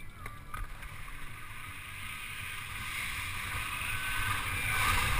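Skis sliding fast down a plastic-mat water-jump ramp, a rushing hiss of skis on the mat and wind that grows steadily louder as speed builds. A couple of light clicks come about half a second in.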